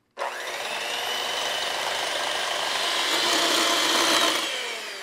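Electric hand mixer running, its beaters whipping egg white in a glass bowl to stiff peaks. The steady whir switches on abruptly at the start and grows gradually louder, then eases off slightly near the end.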